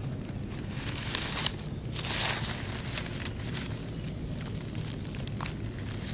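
Dry fallen leaves crackling and rustling in irregular bursts as a hand parts the leaf litter to pick a morel mushroom.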